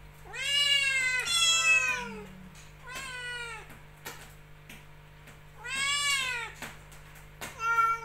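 Caged kittens meowing over and over, high cries that rise and fall in pitch. There are two long meows in the first two seconds, a short one about three seconds in, another long one about six seconds in, and quick short ones near the end. The kittens are crying to be let out of the cage.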